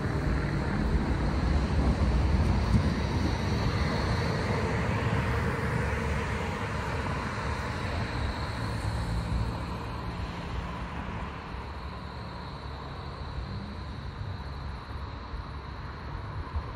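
A 2015 Bombardier M8D-NF2 low-floor tram pulling away and running off down the line. Its running noise fades steadily as it draws away, with a thin high whine above it.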